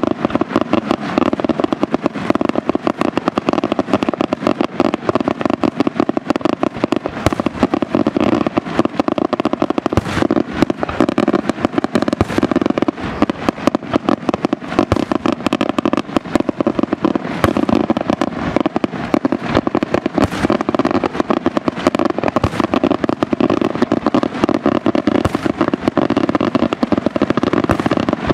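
Daytime fireworks display: aerial shells bursting in a dense, continuous barrage of rapid bangs and crackling, with a few louder single bangs standing out above the rest.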